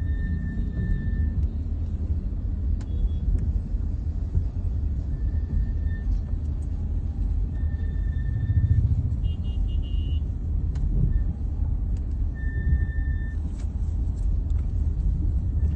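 BMW 3 Series GT (F34) brakes whining during slow-speed braking: a high-pitched whine comes and goes several times in roughly one-second stretches over the car's low road rumble. The whine persists despite new front pads and greased calipers.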